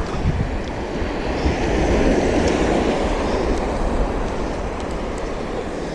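Sea surf breaking and washing up the shore, swelling about two seconds in and then slowly fading, over a low rumble of wind on the microphone.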